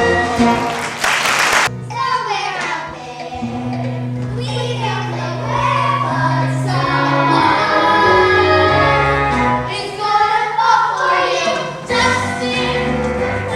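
A young chorus singing a musical-theatre number in unison over instrumental accompaniment, with a brief noisy crash about a second in.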